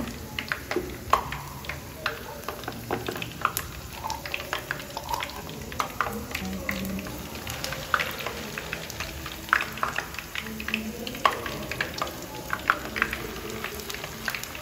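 Onion slices and spooned akara bean batter frying in a pan of hot oil: steady irregular crackling and popping.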